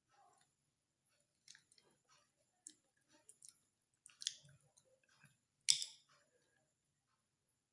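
A person biting and chewing a lemon: soft scattered wet mouth clicks, with two louder noises about four and six seconds in.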